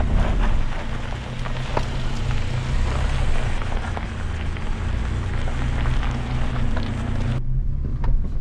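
Pickup truck engine running steadily at low revs while crawling up a rough off-road hill, with a dense crackling noise and scattered clicks over it. About seven seconds in the crackle cuts off abruptly and the engine goes on more quietly.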